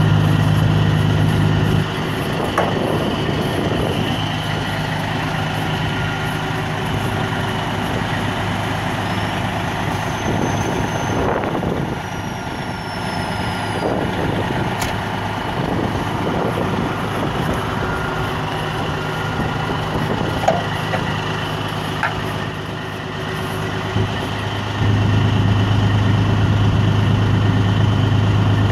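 Semi-truck diesel engine idling with a steady low hum, loud at the start and again from about 25 seconds in, quieter in between. A few sharp knocks sound here and there.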